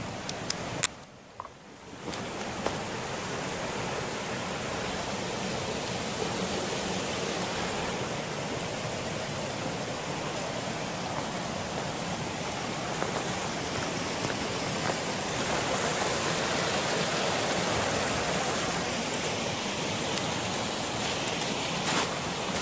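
Steady rushing of running water from a mountain waterfall, with a few sharp clicks in the first two seconds.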